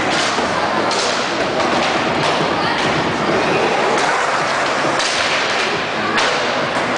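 Skateboards on concrete: wheels rolling, with a run of thuds and clacks from boards hitting the ground, at irregular spacing about once a second.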